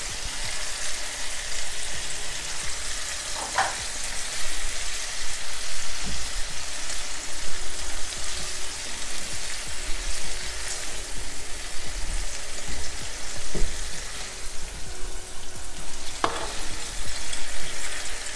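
Lamb strips, onions and chopped red pepper sizzling in hot oil in a non-stick frying pan, with a plastic spoon stirring and scraping through the food a few times.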